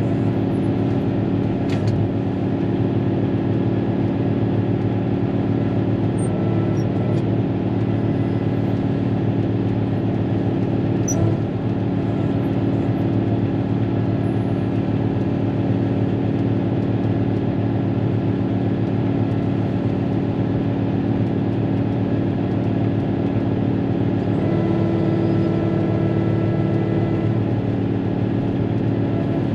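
Cat motor grader's diesel engine running steadily, heard from inside the cab, with a couple of brief clicks.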